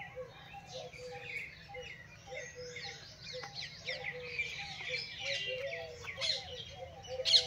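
Many small birds chirping and twittering together: a busy run of quick high chirps with shorter, lower call notes beneath them. One sharper chirp stands out near the end.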